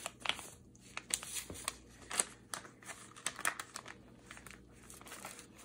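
A sheet of paper being folded in thirds and creased by hands in disposable gloves: irregular soft crinkles and rustles of paper, with light rubbing of the gloves on it.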